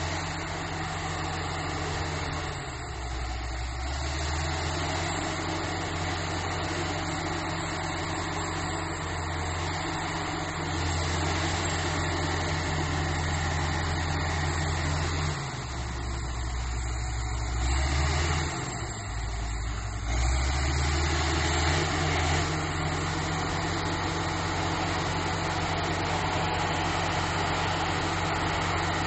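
Bulldozer diesel engine running steadily while skidding logs; its pitch sags and comes back up several times as the load or throttle changes.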